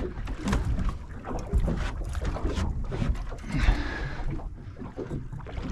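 Wind buffeting the microphone on a small boat at sea, with water against the hull and scattered knocks.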